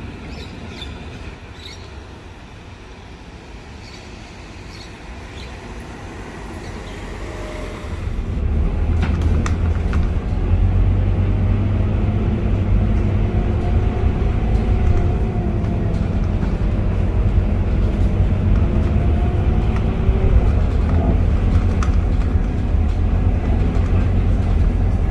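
Scania K230UB city bus's five-cylinder diesel engine idling quietly, then about a third of the way in the bus pulls away. The engine comes up into a strong, deep rumble, with its pitch rising and falling as it accelerates.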